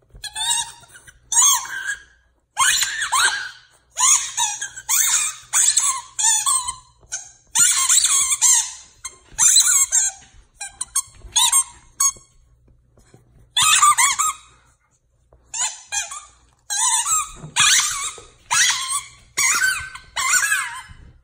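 Squeaky ball toy squeaking over and over as a corgi chews it: runs of short, wavering high squeaks with a couple of brief pauses.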